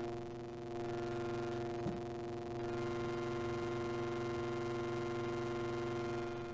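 Moog Model 15 iPad app synthesizer sounding a steady droning tone rich in overtones, dipping slightly in level shortly after the start. A single brief click about two seconds in.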